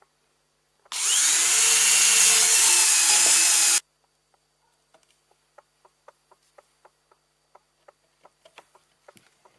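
Electric hand planer, mounted as a homemade vertical planing machine, spinning up and running at full speed with a high whirring for about three seconds, then cutting off suddenly. Faint scattered ticks and clicks follow.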